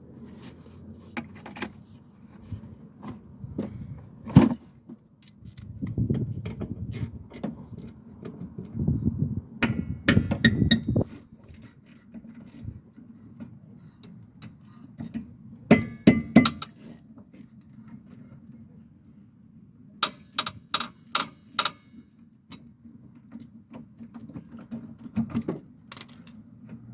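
Metal tools and parts clinking, knocking and rattling as they are handled, including a quick run of about six sharp clicks partway through, over a low steady hum.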